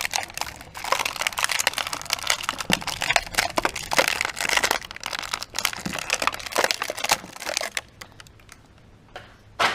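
Plastic toy packaging crinkling and rustling as it is handled to get the eggs out, dense and irregular, stopping about eight seconds in; one short sharp click or tap comes at the very end.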